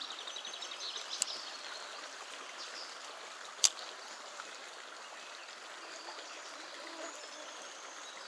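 Small river flowing and trickling steadily over a snag-filled bed. A single sharp click about three and a half seconds in is louder than the water.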